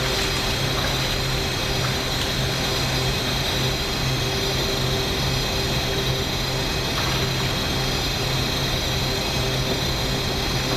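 A steady drone: a low hum with an even hiss over it, unchanging throughout.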